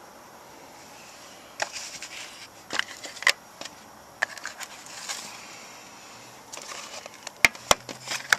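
Sharp clicks and light knocks of metal Zippo lighters being handled and moved in and out of their carry case, scattered irregularly, with two of the sharpest clicks close together near the end.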